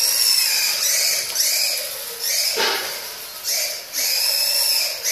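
Tamiya Grasshopper RC buggy's small stock brushed electric motor and gears whining in short throttle bursts, the high pitch rising and falling about once a second, with a brief louder rush about halfway through.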